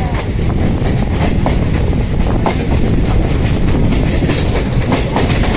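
Passenger train running, a steady low rumble with the wheels clicking over the rail joints.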